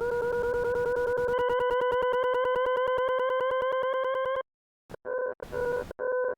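Desmos graphing-calculator audio trace playing the graph of x/10 + tan(x) + sin(x) as a synthetic buzzy tone, its pitch creeping slowly upward and chopped by rapid even clicks. After a short silence about four and a half seconds in, the graph of mod(x, sin(x)) begins as a choppy, stuttering tone.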